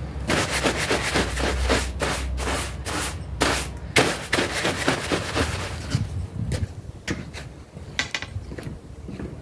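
Stiff-bristled push broom scrubbing a wet, mud-caked carpet in quick back-and-forth strokes, a rapid run of scratchy rasps. The strokes thin out after about six seconds to a few scattered taps.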